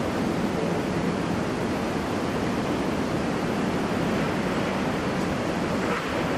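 Steady rushing background noise with no distinct events, even and unbroken throughout.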